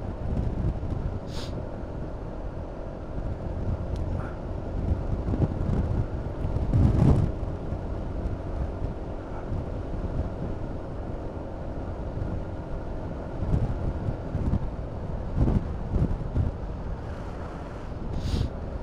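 Honda Forza 350 single-cylinder scooter running along at road speed: a steady engine hum under rushing wind and road noise on the microphone. The wind swells loudest about seven seconds in and again around fifteen seconds.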